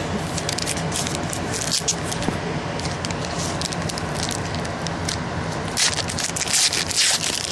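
Cardboard trading cards being flipped and slid through the hands: crisp rustling and flicking, busiest and loudest about six to seven seconds in, over a steady low hum.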